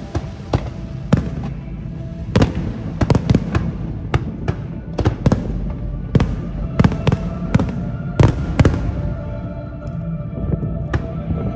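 Aerial fireworks bursting in quick irregular succession: many sharp bangs, several to the second at the busiest, with music playing underneath.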